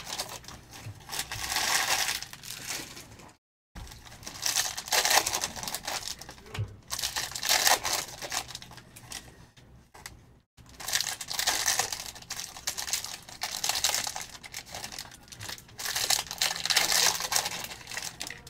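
Trading-card pack wrappers being crinkled and torn open, in several swells of rustling a second or few long, broken twice by a moment of silence.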